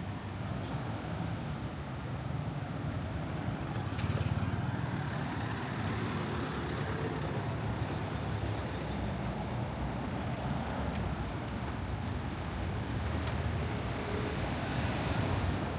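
City street traffic: cars and other motor vehicles passing in a steady low rumble.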